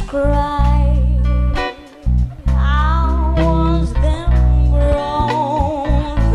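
A band playing lounge music live: a singer with a wavering, vibrato melody over guitar chords and a heavy bass line.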